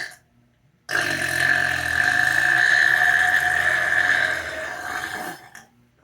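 A person's long, drawn-out burp lasting about four and a half seconds, held at a steady pitch and fading out at the end. It is preceded by the end of a short burp right at the start.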